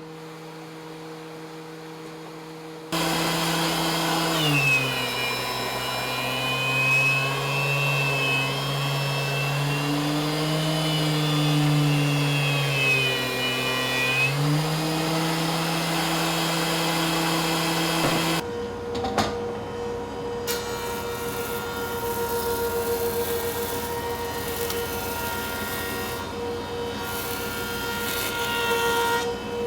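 Stationary woodworking machines milling hard maple, most likely a thickness planer followed by a jointer. About three seconds in the machine gets much louder, and its motor pitch drops and stays low for about ten seconds with a high squeal as a board feeds through, then rises back to free running. Partway through, the sound changes to another steady machine run.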